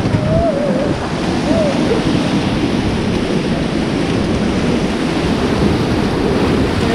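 Whitewater rapids rushing and churning around an inflatable raft, a steady loud roar of water mixed with wind buffeting the microphone. A couple of faint voice-like calls come in the first two seconds.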